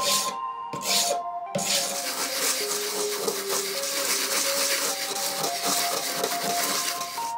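A hand file rasps across a 3D-printed plastic part held in a vise, two strokes in the first second and a half. Then the printed part is rubbed back and forth on a sheet of sandpaper, a continuous scratchy hiss. Background music plays throughout.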